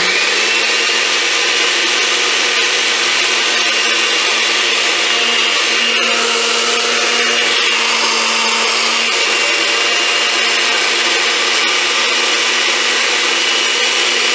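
Countertop blender running at a steady pitch, its blades pulverizing dry rolled oats and baking powder into a fine flour.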